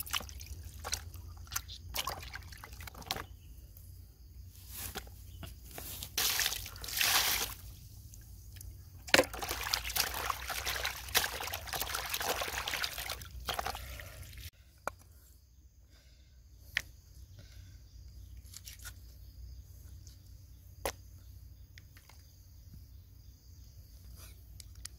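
Water splashing and sloshing in a plastic basin as hands rub and rinse raw squid, in irregular surges. About halfway through it cuts off suddenly, leaving a quieter background with a few sharp, isolated knocks.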